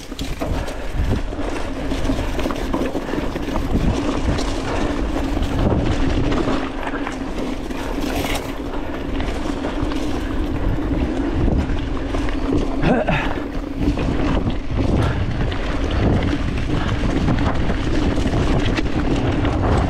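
Commencal Meta TR 29 mountain bike ridden fast down a dirt singletrack: wind buffeting the camera microphone over tyre noise and the bike rattling over bumps, with a steady hum underneath.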